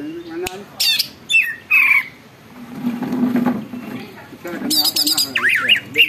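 Green leafbird (cucak ijo) singing in bursts: sharp, high chips and short falling notes in the first two seconds, then a run of quick rising-and-falling whistled phrases near the end.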